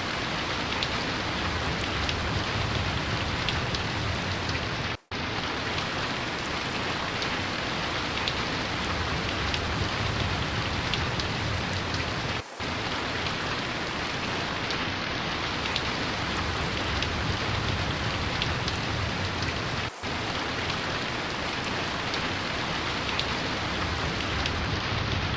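Rain falling steadily, an even hiss of drops that cuts out for an instant three times, about every seven and a half seconds.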